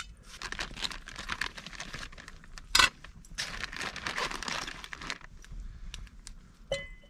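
Plastic zip bag rustling and crinkling as vegetables are handled and taken out, with one loud sharp clack about three seconds in. Near the end comes a short ringing clink of aluminium cookware.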